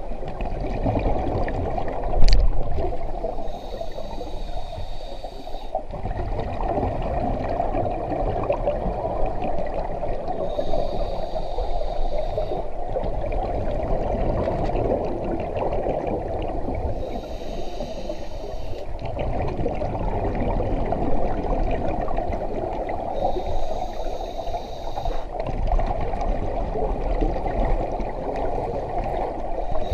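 Scuba diver breathing through a regulator underwater: a hissing inhale about every six to seven seconds, four in all, with bubbling exhalations between them. A single sharp knock about two seconds in.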